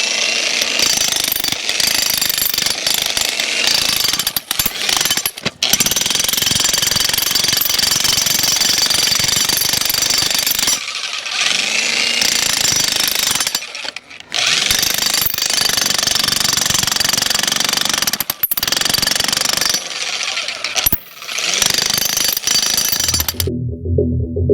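Vevor electric demolition jackhammer chiselling into concrete, hammering in long runs broken by a few short pauses. Music cuts in near the end.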